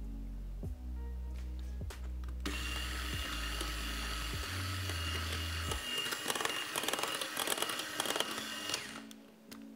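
Electric hand mixer switching on about two and a half seconds in and running steadily with a high whine, beating thick custard into whipped cream, then stopping near the end.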